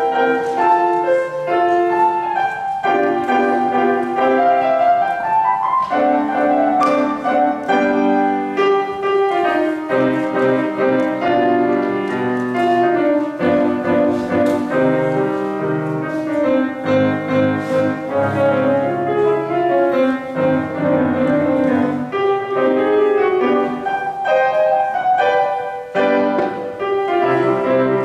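A grand piano played solo: a continuous stream of notes, a higher line moving over lower notes throughout.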